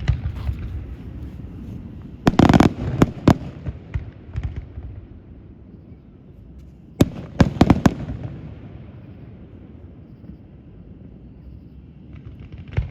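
Fireworks display going off: clusters of sharp crackling pops about two seconds in and again about seven seconds in, over low rumbling booms.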